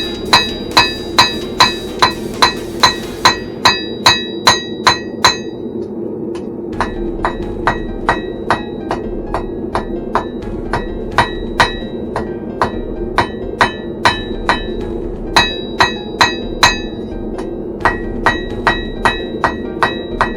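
Blacksmith's hammer striking on an anvil in a steady rhythm, about two or three blows a second, each with a bright ring. The ring dies away for a stretch in the middle, then returns. Under it runs the steady roar of the forge.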